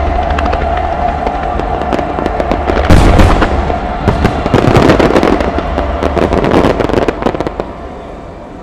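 Aerial firework shells bursting: a heavy boom about three seconds in, followed by dense crackling that dies away near the end.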